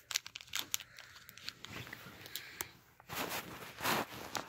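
Thin plastic candy wrapper crinkling and crackling as it is picked open by hand, with many short sharp crackles in the first second or so and louder rustling bursts near the end.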